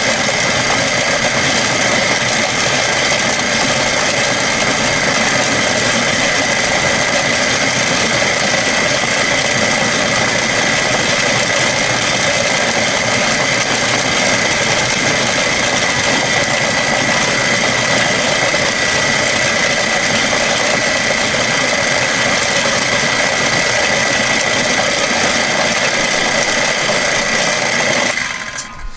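Milling machine end mill cutting a flat spot into an AR-15 lower receiver: a steady high-pitched machining whine with a rattle of metal chips. It stops abruptly about a second before the end as the cutter comes out of the cut.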